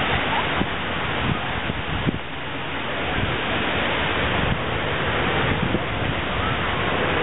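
Wind buffeting the microphone in a steady rush, over small waves lapping at the shore.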